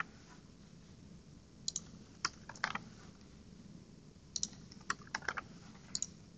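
Computer keyboard typing in short bursts of a few sharp keystrokes, with pauses between.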